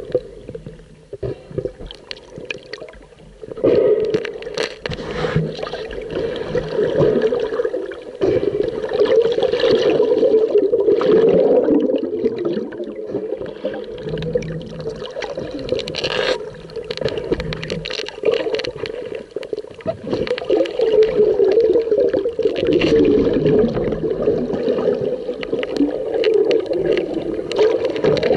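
Muffled underwater water noise picked up by a submerged camera: a continuous wavering rumble with gurgling and scattered clicks, quieter at first and much louder from about three and a half seconds in.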